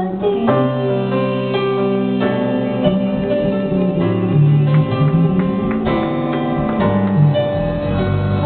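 Acoustic guitar played alone, picked notes and chords ringing out in an instrumental passage.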